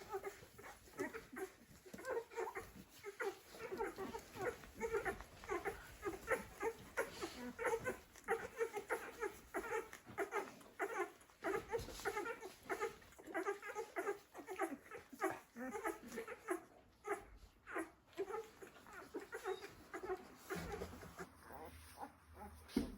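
A litter of Bernese mountain dog puppies squeaking and whimpering: many short, pitched calls overlapping in a continuous chorus. A low hum comes in near the end.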